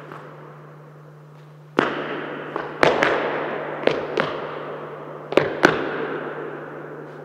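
A series of sharp cracks and bangs over a rushing noise that starts suddenly about two seconds in and slowly fades, with a faint steady hum underneath.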